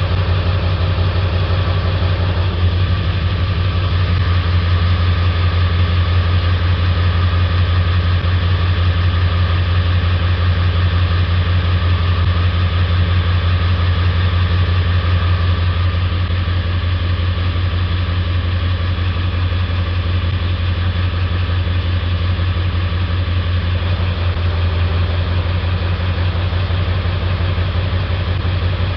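Ford 7.3 Power Stroke V8 diesel running steadily during a scan-tool cylinder contribution test. It has a dead misfire on cylinder 3, which is not contributing.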